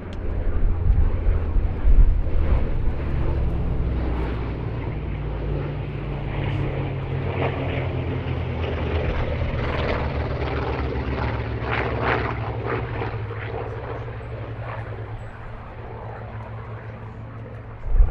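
Piston-engined WWII warbirds flying past, a deep propeller-engine drone that comes up loud near the start, holds steady and fades away over the last few seconds.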